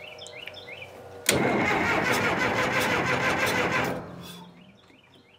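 Caterpillar D4D dozer's diesel engine turning over on the starter and running loudly for about two and a half seconds, then dying away over about a second. The operator wonders whether it ran out of fuel.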